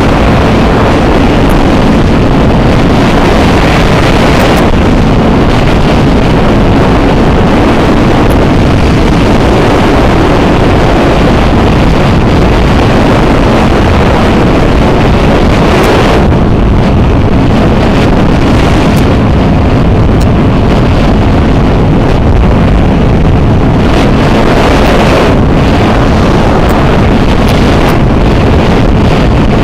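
Loud wind noise buffeting the microphone of a camera on a moving CFMoto 400NK motorcycle, with the bike's engine running steadily underneath.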